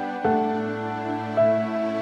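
Soft background music: slow, sustained melodic notes, with a new note coming in about a quarter of a second in and again near the middle.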